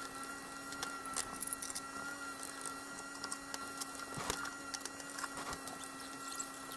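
Wooden spatula stirring and scraping chicken, onion and green pepper in a frying pan, with scattered light clicks as it knocks against the pan, over a steady low hum.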